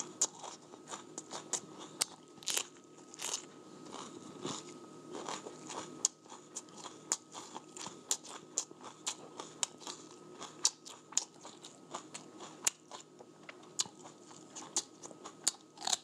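A person chewing and biting crunchy food close to the microphone: repeated sharp crunches, a few a second.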